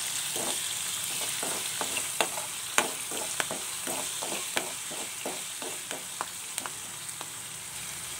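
Onions, green chillies and curry leaves sizzling in hot oil in a metal kadai while a spatula stirs them, scraping and knocking on the pan two or three times a second. This is the tempering stage of a rasam.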